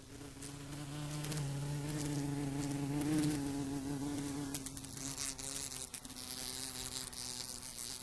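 A wasp buzzing against a window pane: a steady wingbeat buzz that holds its pitch, with a few light ticks around the middle as it bumps the glass.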